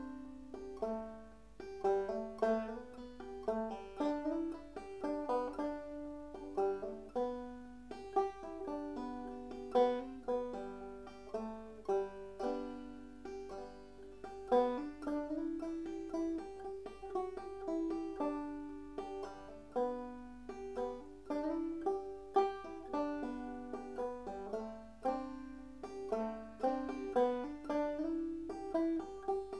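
Five-string banjo played clawhammer style in gDGBD tuning, a steady run of plucked notes that ring and fade, carrying a slow Scottish air.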